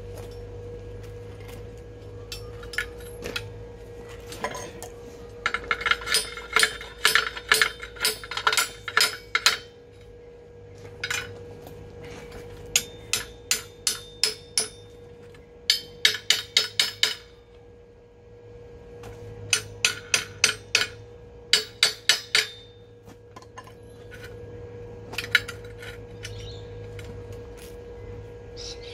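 Bursts of quick hammer strikes on metal, a few blows a second with a short metallic ring after each, stopping and starting again several times over a steady hum.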